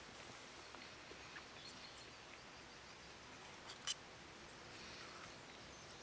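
Near silence: faint outdoor ambience, with one sharp click about four seconds in.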